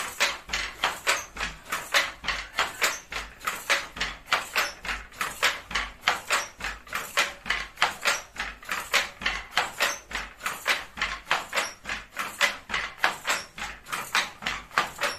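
Weaving loom running, clacking in a fast, steady rhythm of about four sharp knocks a second.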